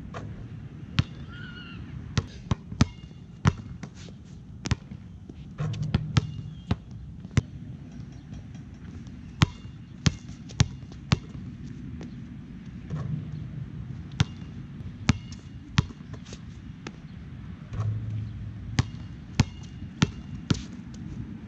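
Nike Jordan Hyper Grip 4P basketball bouncing and being shot: sharp, irregular impacts, about one or two a second, over a steady low background hum.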